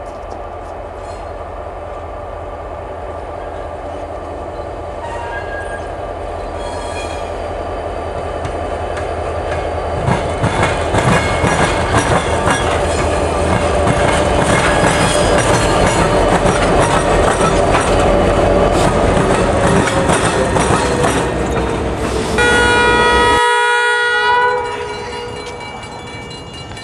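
Norfolk Southern diesel freight locomotives approaching and passing close by, their engines and wheels growing steadily louder and staying loud from about ten seconds in, with a tone that slides down in pitch as they go by. Near the end a loud multi-note train horn sounds for about two seconds, and the low rumble cuts off suddenly.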